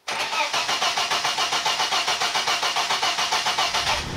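Car engine being cranked by its starter motor just after a spark plug change, a steady rhythmic churning of about seven pulses a second that cuts off suddenly near the end.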